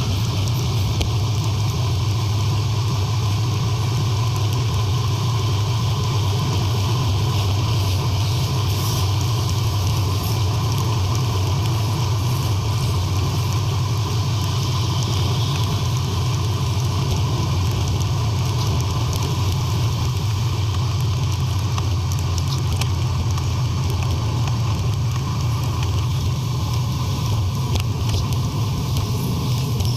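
Steady wind rumble and road noise on the microphone of a camera riding along on a road bike, with a heavy low rumble and an even hiss above it.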